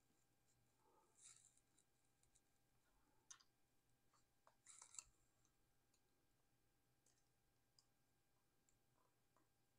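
Near silence with a few faint clicks and scratches from metal forceps and fine wire being worked through a hole in a coil form. The loudest click comes about five seconds in.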